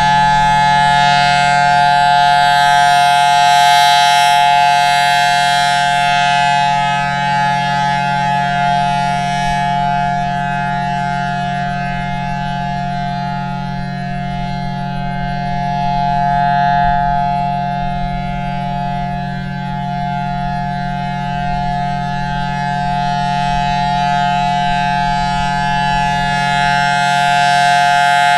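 Federal Signal Thunderbolt 1000T rotating outdoor warning siren sounding a loud, steady tone at full speed. Its loudness slowly swells and fades as the horn turns toward and away, at its loudest about four seconds in, midway and near the end.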